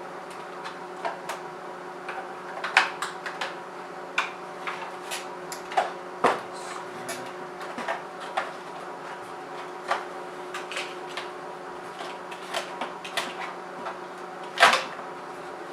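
Irregular sharp clicks and knocks of hard plastic and a screwdriver as the angel-eye ring section of a BMW E39 headlight housing is pried loose from its sealant, the loudest knock near the end, over a steady low hum.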